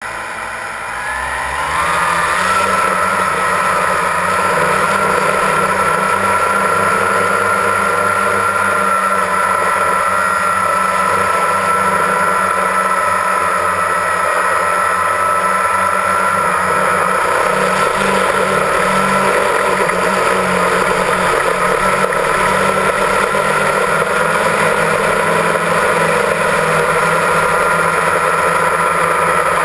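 Multirotor drone's electric motors and propellers spinning up for takeoff, rising in pitch about a second or two in, then a steady high whine as it climbs and hovers.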